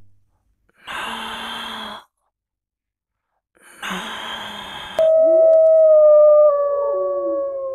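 Two short breathy sighs, then, about five seconds in, a loud dog howl: one long held note with a second howl gliding beneath it, the pitch sinking toward the end.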